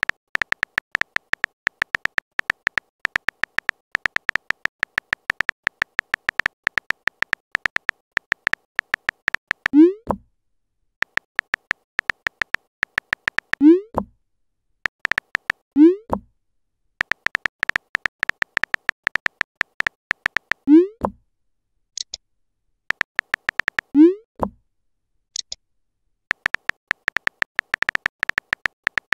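Rapid simulated phone-keyboard typing clicks from a texting-story app, in runs broken by short pauses. Five short rising pops are heard through the middle stretch as messages are sent.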